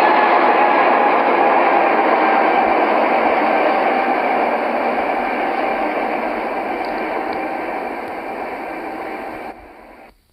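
Steady rushing noise with a faint hum of steady tones in it, fading slowly and cutting off shortly before the end.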